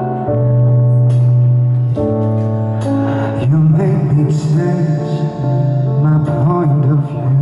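Live pop ballad: a man singing long held notes into a microphone over instrumental backing.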